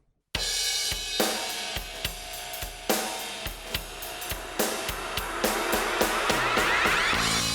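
Rock music with a full drum kit, hi-hat and cymbals over snare and kick, starting abruptly after a brief silence.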